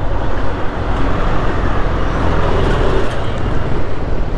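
Kymco Xciting S 400i maxi-scooter riding along, its engine a steady low hum under an even rush of road and wind noise.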